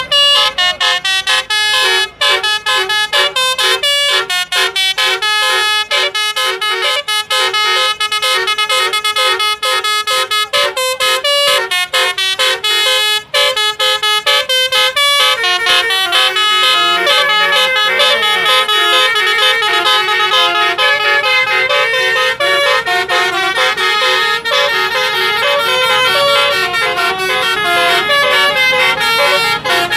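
A bus's Basuri telolet horn, a set of multi-note air horns, playing a fast, continuous melody loudly, note after note with several tones sounding together.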